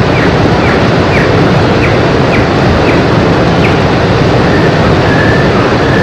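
American dipper singing: about seven short, falling notes roughly half a second apart, then a longer even whistled note near the end. The loudest sound throughout is the steady rush of a fast stream.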